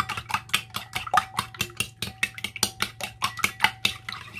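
A metal spoon beats eggs in a ceramic bowl, making quick, even clinks against the bowl, about seven a second, with a faint ring.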